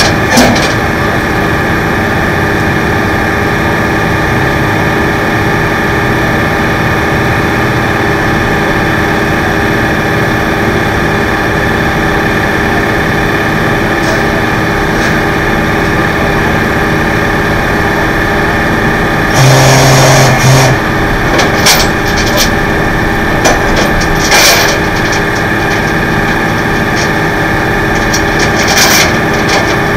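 Flatbed tow truck's engine idling steadily. About two-thirds of the way through there is a brief loud low tone, followed by a few short knocks or clanks.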